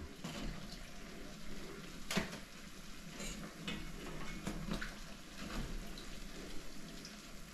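Hot oil sizzling faintly in a frying pan after frying placki, with a few light clinks of kitchenware, the clearest about two seconds in.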